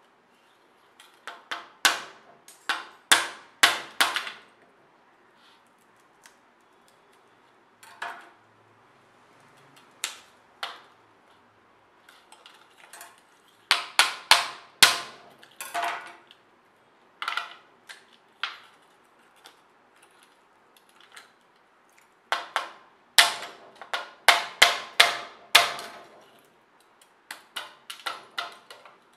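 Kitchen knife blade knocking on the charred hard shell of a fire-roasted coconut, cracking the burnt shell away, in quick clusters of sharp knocks with short pauses between. Broken shell pieces clatter onto a steel plate.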